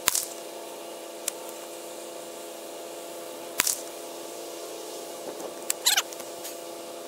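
A few sharp clicks and light handling rustles from a single-shot shotgun held at aim. Under them runs a steady machine hum.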